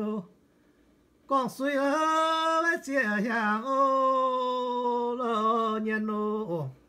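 A man's solo voice chant-singing an old ballad unaccompanied, his pitch wavering and stepping between syllables. He pauses for about a second early on, then sings again and holds one long note before breaking off near the end.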